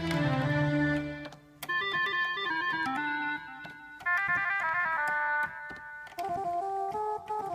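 Yamaha PSR-A2000 arranger keyboard playing one of its newly installed expansion voices: a held chord with a deep bass at the start, then three short phrases of single stepping notes.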